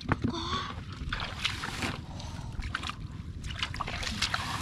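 Shallow muddy water sloshing and splashing in irregular bursts as fish are handled by hand in and around a plastic bucket, with a sharp knock at the very start.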